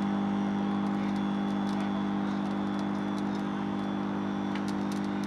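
Old Pacific microwave oven running, with a steady mains hum from its transformer and magnetron, and a few faint crackling ticks from the petrol fire burning inside it.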